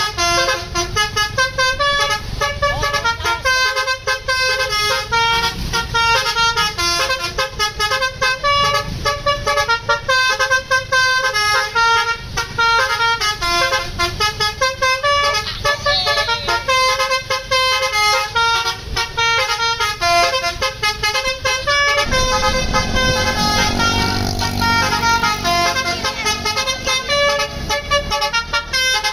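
Basuri V3 telolet musical horn on a tour coach playing a continuous, fast melody of steady horn notes. About three-quarters of the way through, the coach's engine rumble grows loud beneath the horn as it draws close.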